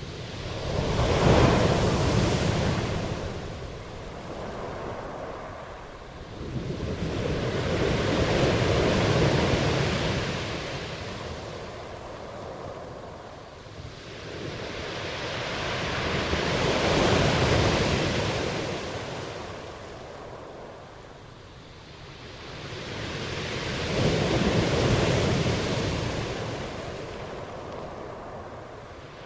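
Waves breaking: a rush of surf that swells and fades about every eight seconds.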